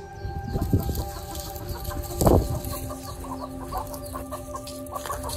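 Domestic chickens clucking, a run of short repeated clucks with two louder calls, about one second and two seconds in.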